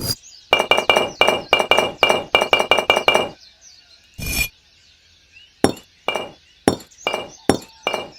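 A quick run of sharp clinking taps with a ringing tone, about five a second for nearly three seconds. Then one single tap, and a few more spaced-out taps.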